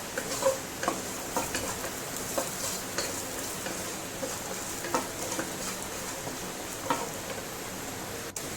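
Nuts and raisins frying in ghee in a pan, a steady sizzle, with a spatula clicking and scraping against the pan now and then as they are lifted out.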